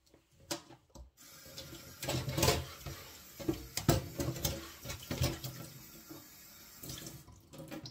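Kitchen tap running into a sink, starting about a second in and stopping near the end, with a few sharp knocks over the running water.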